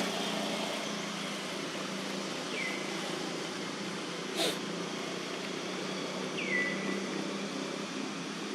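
Two short, high animal calls, each dropping in pitch and then levelling off, come about four seconds apart over a steady low mechanical hum. A single sharp click falls between them.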